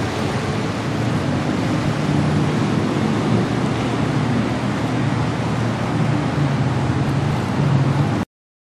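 Two jet skis' engines running over rough, choppy water, their hum mixed with waves and wind. The sound cuts off suddenly near the end.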